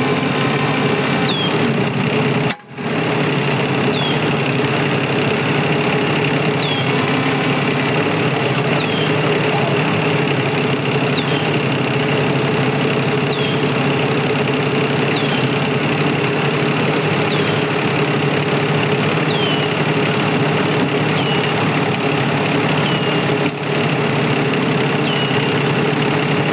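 Wacker Neuson ET20 mini excavator's engine running steadily, with a short high falling chirp repeating about every two seconds. The sound cuts out briefly a few seconds in.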